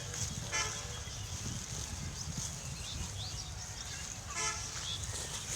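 Two short animal calls, about half a second and four and a half seconds in, with small bird chirps between them over a steady low rumble and a high hiss.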